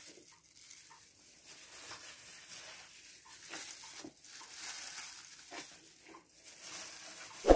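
Clear plastic disposable glove crinkling and rustling as gloved hands set fried samosas down onto a plate of salad, with soft irregular handling sounds. A single sharp knock near the end is the loudest sound.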